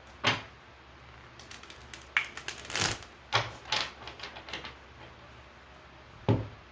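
Tarot cards being handled on a table: a string of sharp, separate taps and card slaps, the loudest about a quarter second in and again near the end, with a quick run of them in the middle.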